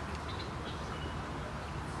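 Outdoor ambience: a steady low background rumble with a few faint, short bird chirps, most of them in the first second.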